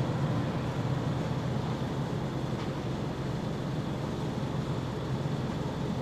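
Toshiba double-door refrigerator running with a steady whir, now cooling properly after its blocked defrost drain was cleared. A faint tick comes about two and a half seconds in.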